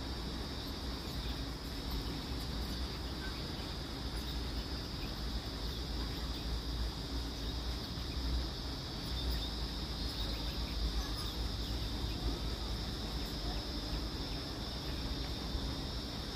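A steady, high-pitched insect chorus that holds without a break, over a low rumble.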